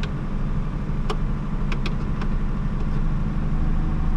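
Plymouth Valiant engine idling steadily, heard from inside the cabin. Several sharp clicks from dashboard switches being worked fall in the first two seconds or so.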